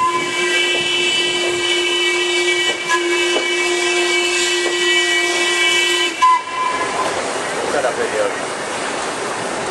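Whistle of steam locomotive 191 blowing one long steady blast for about six seconds, then cutting off suddenly, leaving the rush of the moving train.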